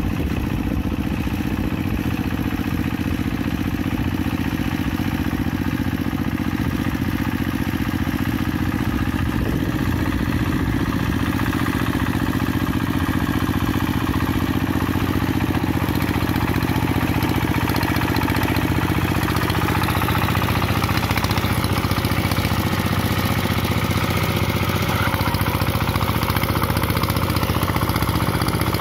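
Single-cylinder diesel engine of a two-wheel hand tractor running steadily under load as it drags a levelling board through flooded paddy mud.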